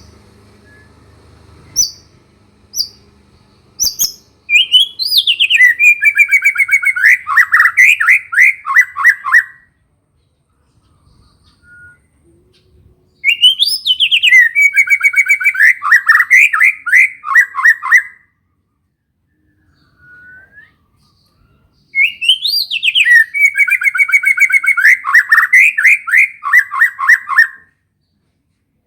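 White-rumped shama (murai batu) singing a song laced with canary-style phrases. A few short chirps come first, then three loud phrases of about five seconds each, separated by pauses. Each phrase opens with a quick rising note and runs into rapid trills that step down in pitch.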